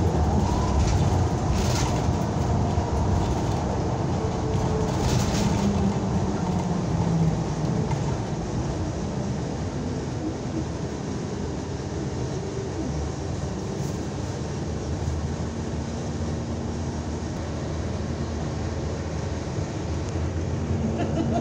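Cabin noise of a NABI 60-BRT articulated city bus under way: steady engine and road noise with a few brief rattles. It gets a little quieter after about eight seconds.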